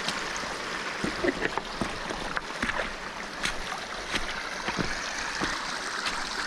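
Small mountain stream rushing over stones, a steady wash, with scattered small clicks and knocks throughout.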